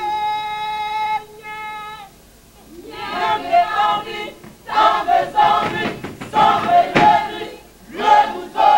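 Group of Ivorian folk performers singing and chanting together in short, repeated phrases. It opens with a long held note of about two seconds, and there is a single sharp knock about seven seconds in.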